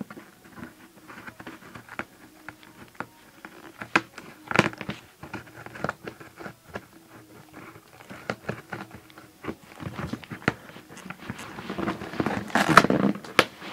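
A parcel's packaging being torn and ripped open by hand: scattered crinkles, clicks and rustles, with a louder stretch of crackling and tearing near the end.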